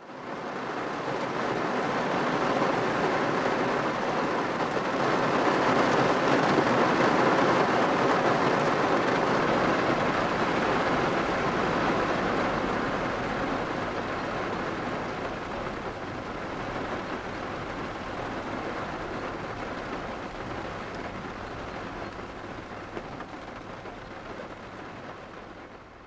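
Heavy rain falling, a continuous hiss that fades in, swells for a few seconds, then slowly eases and fades out at the end.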